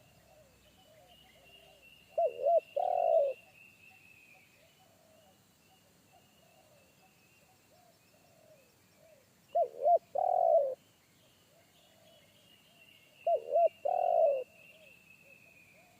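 A spotted dove (tekukur) cooing three times, each call two quick short notes followed by a longer coo. A faint, thin, high whistle is drawn out behind the calls.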